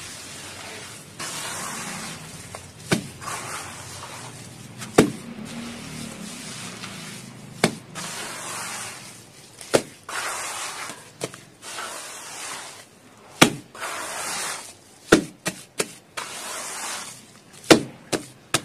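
Bare hands squeezing and kneading wet red dirt paste in a plastic tub: stretches of wet squelching and rubbing, broken by sharp smacks every couple of seconds that come in quicker runs near the end.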